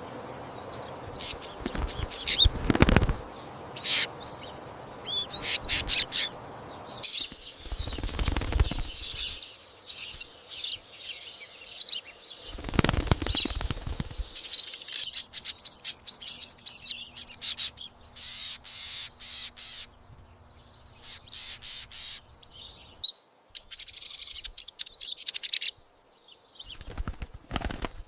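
Goldfinch chirping in rapid high series, call after call, with three short bursts of flapping or rustling noise in the first half.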